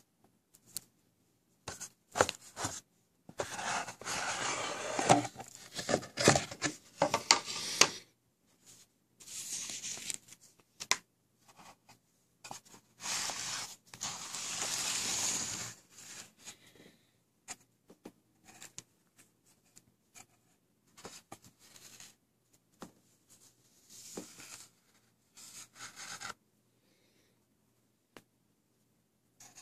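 A cardboard gift box being opened and its paper packing handled: several stretches of scraping and rustling with light knocks between them, the busiest in the first half, then quieter handling sounds.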